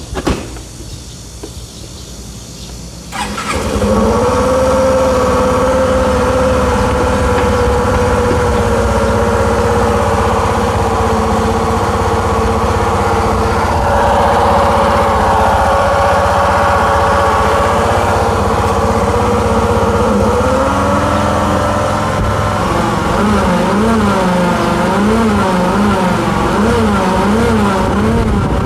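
Suzuki Nex scooter's single-cylinder engine starting about three seconds in and then running steadily, with an abnormal noise the owner is documenting. Near the end its pitch wavers up and down about once a second.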